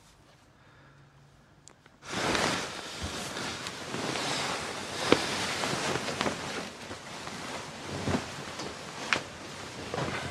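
Bedding and duvet rustling as two people move in bed, starting abruptly about two seconds in after near silence and going on steadily, with a few sharp clicks and taps.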